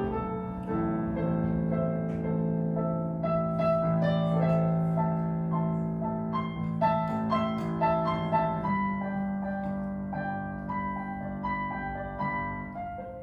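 Instrumental break in an acoustic folk song: an accompanying instrument plays a melody of short notes over held bass notes, with no singing. The bass note changes about two thirds of the way through.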